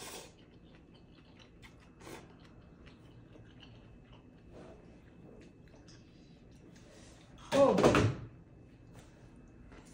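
Instant noodles slurped off chopsticks at the start, then soft chewing. About seven and a half seconds in comes a short, loud burst of voice, the loudest sound here.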